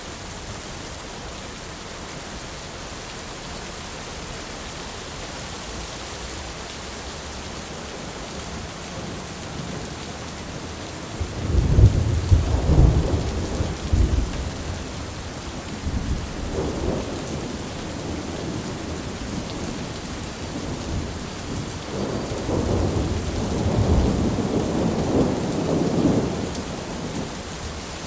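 Steady rain falling, with rolls of thunder: a loud crackling rumble about twelve seconds in that dies down over a few seconds, a short grumble soon after, and a second long rumble in the last third.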